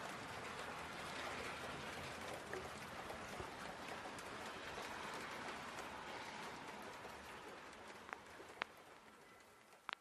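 Steady, even hiss of outdoor ambient noise that fades out over the last couple of seconds, with a few sharp clicks near the end.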